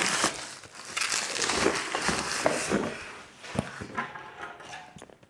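Plastic mailer bag and bubble wrap crinkling and rustling as they are pulled off a cardboard box, dying down after about three seconds, followed by a few light knocks.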